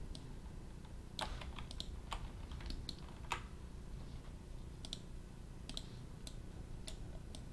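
Computer keyboard keys and mouse buttons clicking, a dozen or so short clicks at irregular intervals, as keyboard shortcuts and selections are made in 3D modelling software.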